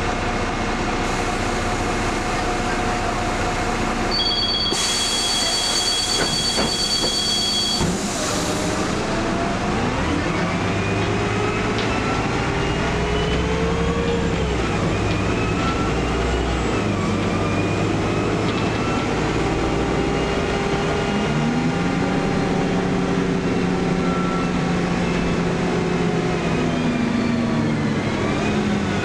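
Interior of a Karosa B961E articulated city bus. A high two-tone electronic beep sounds with a hiss of air for about four seconds and ends in a thump about eight seconds in, typical of the doors closing. Then the engine and driveline whine rises as the bus pulls away, dropping back at gear changes about halfway through and again a few seconds later before climbing again.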